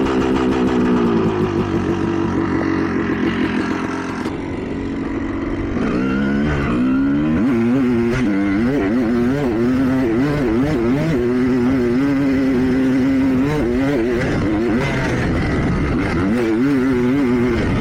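A Honda CR250R's two-stroke engine with its FMF exhaust, revving up and down repeatedly as the dirt bike is ridden, with a break in the sound about four seconds in.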